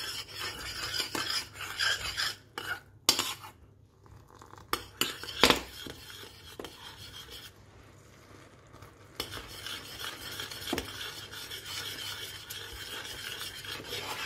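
A metal spoon stirs and scrapes a small stainless-steel saucepan, clinking against the pan, while a honey and cider-vinegar sauce bubbles and sizzles as it reduces over high heat. The stirring goes quieter twice, around 4 s and 8 s, and the sauce sizzles steadily from about 9 s on.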